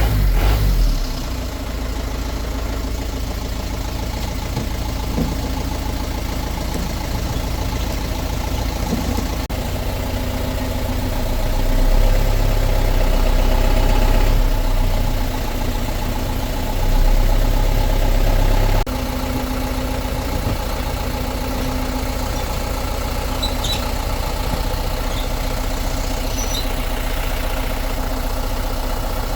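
Hyundai heavy truck's diesel engine running steadily at idle, rising louder twice for a few seconds in the middle.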